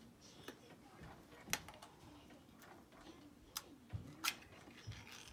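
A few scattered faint clicks and taps over a quiet room hum: a small plastic food cup being opened and handled, with a metal spoon.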